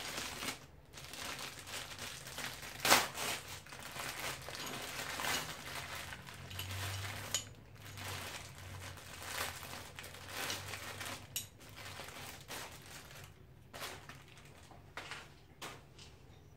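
Clear plastic packaging crinkling and rustling as it is handled and pulled off a metal bar, with one sharp knock about three seconds in that is the loudest sound.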